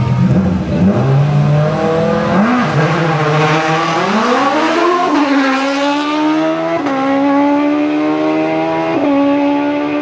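Rally car engine held at raised revs on the start line, then launching and accelerating hard, its pitch climbing steeply and dropping twice near the end as it shifts up through the gears.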